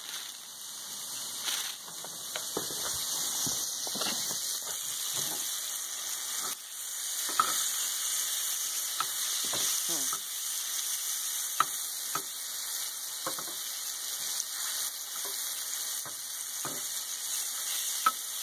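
Chicken-of-the-woods mushroom pieces sizzling in melted butter in a frying pan, a steady hiss, with short clicks and scrapes now and then as metal tongs turn them in the pan.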